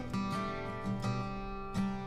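Background music with strummed guitar chords.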